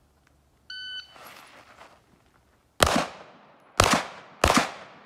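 A competition shot timer's electronic start beep. About two seconds later a Smith & Wesson M&P 2.0 pistol fires three shots, about a second apart and then quicker, with a fourth right at the end. Each shot is followed by a short echo.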